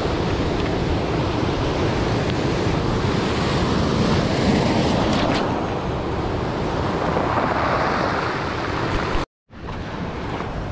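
Ocean surf washing and breaking, a steady rush with swells, with wind on the microphone. It cuts off abruptly about nine seconds in, giving way to a quieter outdoor background with a few faint clicks.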